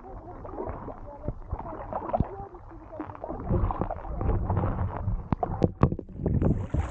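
Sea kayak paddling: paddle blades dipping and dripping, with water gurgling and trickling around the hull. A low rumble swells in the second half, and a few sharp knocks come about five to six seconds in.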